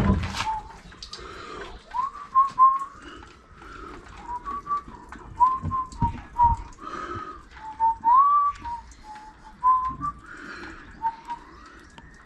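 A person whistling a wandering tune, a string of short held notes with small slides between them, with a few light knocks and taps of handling in between.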